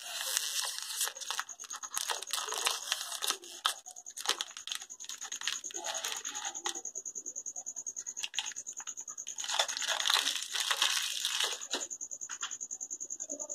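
Crinkly plastic wrapper of an Oreo biscuit pack tearing and crackling as it is pulled open by hand, in bursts through the first few seconds and again around ten seconds in, with quieter rustles between. A faint, steady high-pitched tone with a quick pulse runs behind it.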